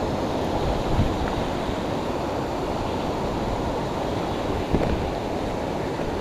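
Steady rush of a fast, swollen creek running past the bank, with a couple of faint knocks.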